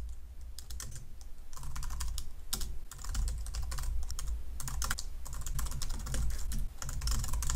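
Typing on a computer keyboard: a quick, irregular run of keystroke clicks, over a steady low hum.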